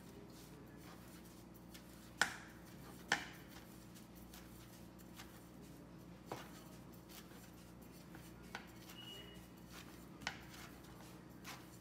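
Rolling pin rolling out a round of dough on a cutting board: a soft rolling rub broken by a few sharp knocks of the pin against the board, the two loudest about two and three seconds in.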